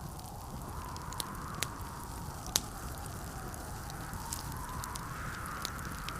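Wood fire crackling in a fireplace, with scattered sharp pops, the loudest about two and a half seconds in. Under it runs a steady low rumble of blizzard wind with a wavering howl.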